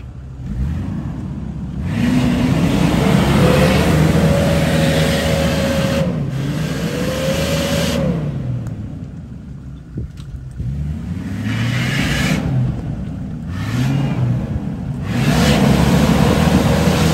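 Jeep Grand Cherokee's 4.0-litre straight-six revving hard in repeated bursts as it claws up a steep muddy bank. The engine pitch rises and falls several times with a whine riding over it, easing off briefly between pushes.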